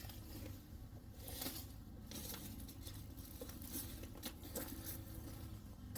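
Faint rustling and crackling of leaves and brush, with scattered small clicks over a low steady rumble; the battery chainsaw is not running.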